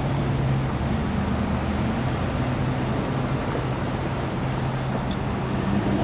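Steady low hum of idling vehicle engines over an even rush of roadway traffic noise.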